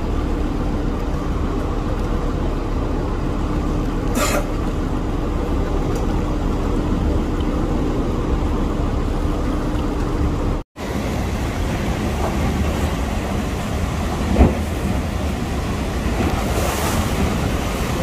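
Steady loud rushing of the Rhine Falls' water, with a low steady hum through the first half that stops at a brief dropout about ten and a half seconds in.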